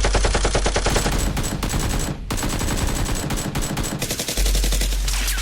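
Rapid automatic gunfire, a steady rattle of about ten shots a second, with a short break about two seconds in.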